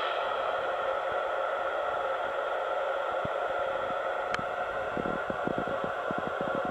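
Icom IC-706 transceiver's speaker hissing with FM receiver static between transmissions from the International Space Station. There is a sharp click about four seconds in, then a rapid crackle from about five seconds in.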